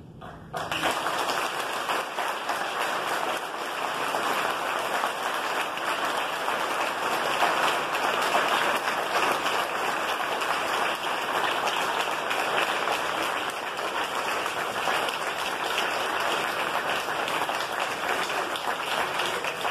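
A courtroom crowd and the bench of judges applauding. The clapping is dense and steady, starting suddenly about half a second in.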